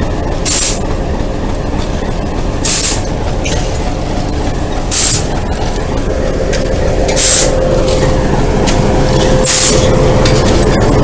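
Alco RS8 diesel locomotive running steadily with a deep rumble. A short sharp hiss sounds at an even beat, about once every two seconds.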